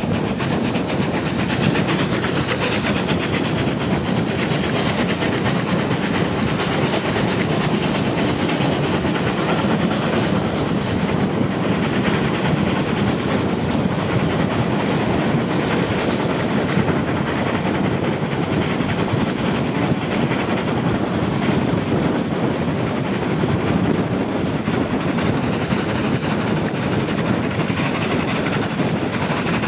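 Steam-hauled passenger train running along the line: a steady rumble and rattle of wheels on the rails.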